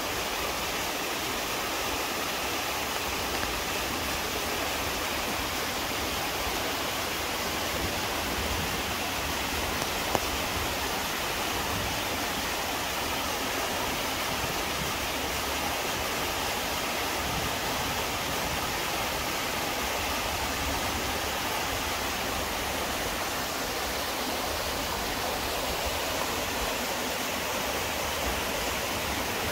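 Chilyeon Falls, a mountain waterfall, pouring steadily into its pool, a continuous even rush of water.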